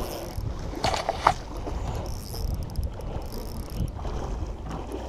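Water splashing as a hooked king salmon thrashes at the surface, over a steady rumble of wind on the microphone, with a few sharp clicks about a second in.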